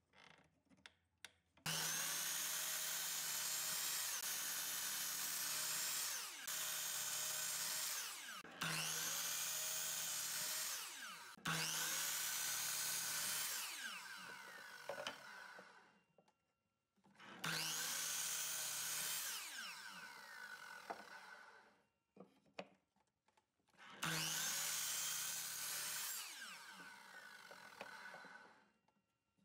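Sliding compound miter saw running and cutting through pine boards, started and stopped several times in a row. Each run starts suddenly with the motor spinning up, holds steady through the cut, then winds down slowly once released.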